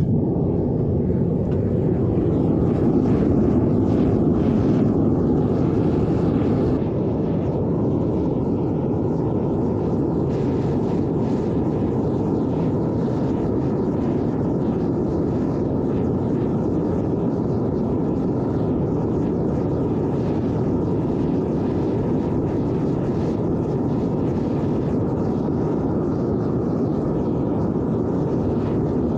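Burner of a brass-melting furnace running steadily while the charge melts. It drops slightly in level about seven seconds in.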